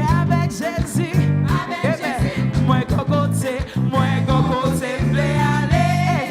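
Live gospel worship music: a band with bass and drums under a sung melody line, part of a repeated praise song.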